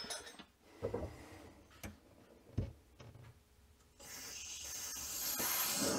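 A few light knocks from fittings being handled, then, about four seconds in, a hiss of water rushing through the supply line of an under-sink water filter as it is turned on, growing louder as it goes.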